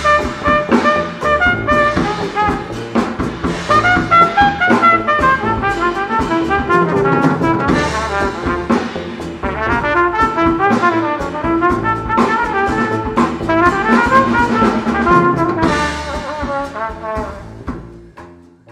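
Jazz cornet solo: a bright brass horn playing quick melodic runs over a drum kit with cymbals, the music fading out near the end.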